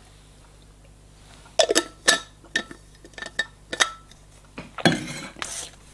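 Oracle cards being handled and laid on a table: a run of light clicks and taps, then a longer rustle of the cards near the end.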